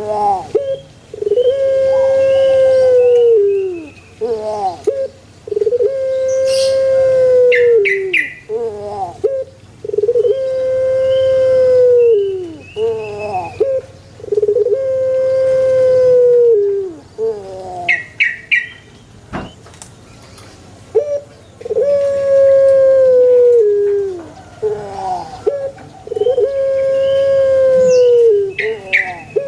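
Puter pelung dove, a domestic Barbary dove bred for its long drawn-out coo, cooing over and over: a few short notes, then one long held coo, about every four seconds. Brief high chirps from another small bird come in three times.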